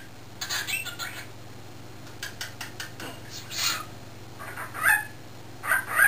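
Pet cockatiel chirping and squawking: a string of short, high, scratchy calls with brief pauses between them, including a quick run of clicky chirps a little after two seconds in.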